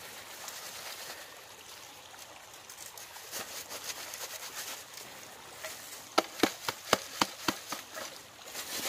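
Loose dirt being shaken through a trapper's wire-mesh dirt sifter to bed over a set foothold trap: a soft trickling rustle, then near the end a quick run of sharp knocks, about four a second, as the sifter is shaken.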